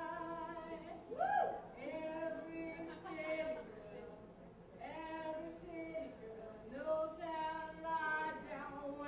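A woman singing into a handheld microphone, holding long notes in short phrases with brief pauses between them, with a swooping rise and fall in pitch about a second in.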